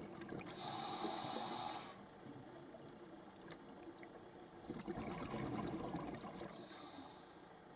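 Scuba diver breathing through a regulator underwater. A hissing inhale comes about half a second in, a longer bubbling exhale about five seconds in, and a short hiss again near the end.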